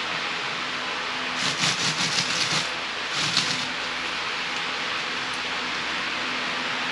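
Steady hiss of rain falling, with two short bursts of crackling noise over it, the first lasting about a second from a second and a half in, the second brief at about three seconds.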